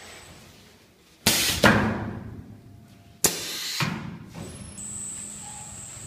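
Pneumatic cutting blade of a croquant (nut brittle) cutting machine working twice, about two seconds apart. Each stroke is a sudden knock with a short hiss of air that fades within about half a second.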